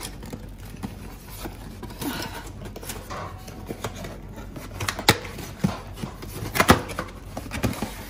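Hands rummaging in an open cardboard box of dishwasher tablets: cardboard flaps rustling and scraping, with two sharp clicks, one about five seconds in and another a second and a half later.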